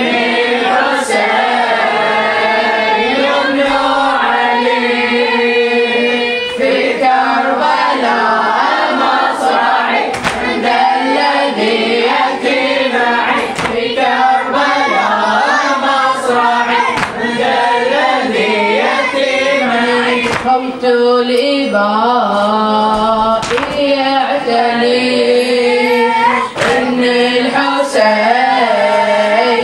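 A boy chanting a melodic Arabic Muharram mourning elegy (latmiya) into a microphone, with other voices joining in chorus. Sharp slaps cut through at irregular intervals.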